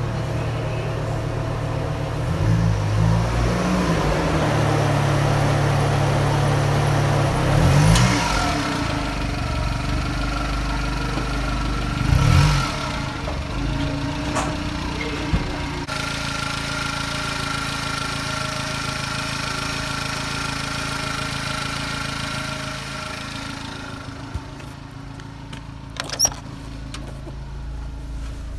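1995 Subaru Sambar van's 660 cc four-cylinder engine running, revved a few times in the first half with the pitch rising and falling, then idling steadily. A sharp click near the end.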